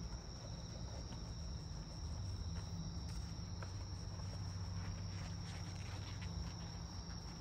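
Insects calling in a steady, unbroken high-pitched 'pii-pii' tone, with a low hum underneath.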